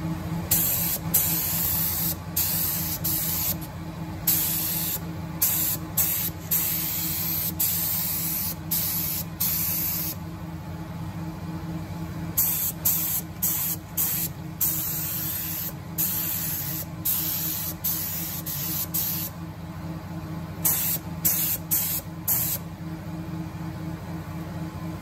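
Gravity-feed air spray gun hissing in a series of short bursts as the trigger is pulled and released, spraying paint onto a car body panel. There is a gap of about two seconds near the middle, then more bursts.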